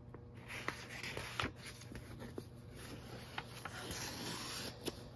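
Paper pages of a coloring book being handled and turned: hands sliding over the paper and a soft rustle, with a few faint ticks. A longer rustle from about three seconds in, as a page is turned over.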